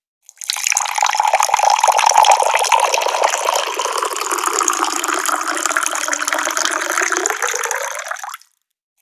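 Water pouring steadily from a tap. It starts up about a third of a second in and cuts off shortly before the end.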